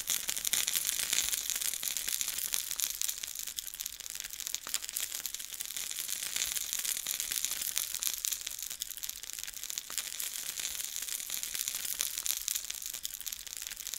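Buttermilk-battered banana pieces deep frying in hot oil: a steady, dense crackling sizzle.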